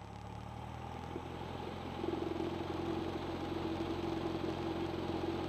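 Cessna 172's piston engine running at taxi power, a steady propeller drone that grows a little louder about two seconds in.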